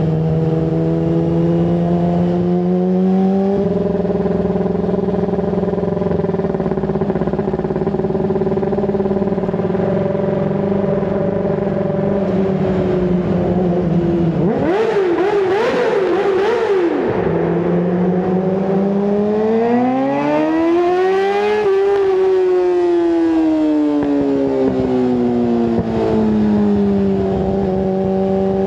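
Yamaha R6 sport bike's inline-four engine with an aftermarket full exhaust, running at a steady fast idle. About halfway through it is blipped in a quick flurry of short revs, then revved up smoothly to a peak and let fall back to a steady idle.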